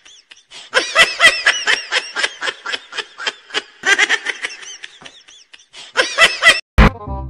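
High-pitched giggling laughter in several quick pulsing runs, with short breaks between them. A single loud thump near the end.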